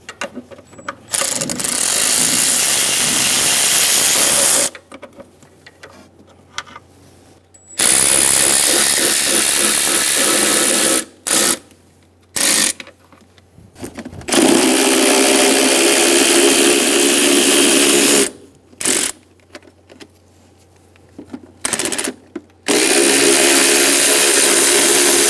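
Power tool with a socket running in four runs of a few seconds each, with short blips between, spinning out the bolts that hold the timing covers.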